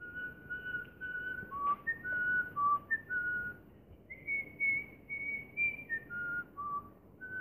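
A person whistling a tune: a string of short held notes that step up and down in pitch, sitting higher for a stretch in the middle.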